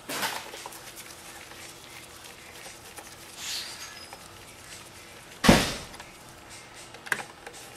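Faint clicks and scrapes of a screwdriver working on the motorcycle taillight's screws, with one loud, sudden thump about two-thirds of the way through.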